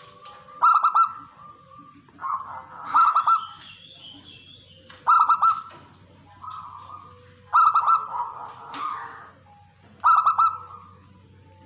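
Zebra dove (perkutut) cooing: a rolling call of rapid pulsed notes, repeated five times about every two and a half seconds.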